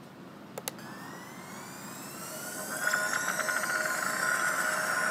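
Electronic intro music for a channel title card: crossing synth sweeps gliding up and down, building steadily in loudness, with two short clicks just over half a second in and a sustained shimmering, fast-pulsing tone coming in about three seconds in.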